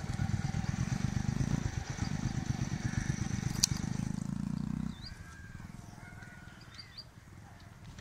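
Motorcycle engine running as the bike rides along a dirt track. About five seconds in it drops away sharply, leaving a quieter stretch with a few faint high chirps.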